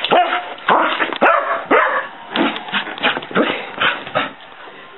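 Flat-coated retriever barking excitedly in quick succession, about two to three barks a second, some sliding down into whiny yips. The barking stops near the end.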